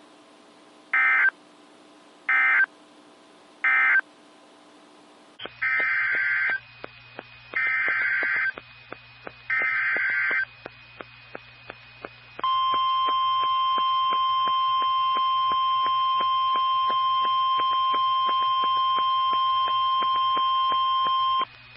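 NOAA Weather Radio EAS data tones: three short warbling SAME end-of-message bursts about a second apart end one warning. About five seconds in, a second station's feed cuts in over a low hum and sends three longer SAME header bursts. This is followed by the steady 1050 Hz weather alert tone for about nine seconds, the signal that a new warning follows.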